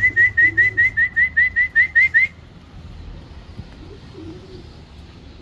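Rapid run of short, rising whistle notes, about five a second, calling a homing racing pigeon down to the loft; it stops a little over two seconds in. Pigeons coo softly underneath.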